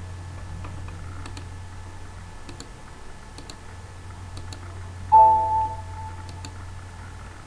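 Faint, spaced single computer-mouse clicks over a steady low hum. About five seconds in, a short chime with several tones rings out and fades over about a second; it is the loudest sound.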